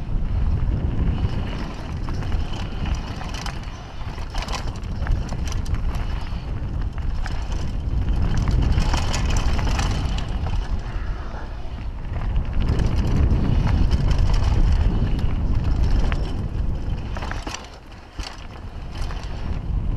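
Wind buffeting a helmet-mounted action camera, with tyres running over a dirt trail and the mountain bike clattering and rattling over roots and rocks during a fast downhill descent. The noise briefly drops away near the end.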